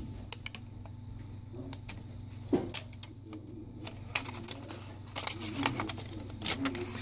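Scattered light clicks and taps at an irregular pace, from a replacement phone screen and small parts being handled on a workbench, over a steady low hum.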